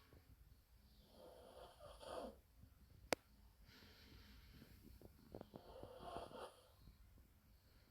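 A small dog snoring in its sleep: two snoring breaths, the first about a second long and the second about three seconds, with a single sharp click between them.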